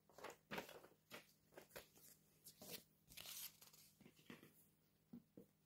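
Faint paper rustling and crackling as a folded paper instruction leaflet is handled close to the microphone: a run of short, irregular crinkles that thins out near the end, with a couple of soft taps.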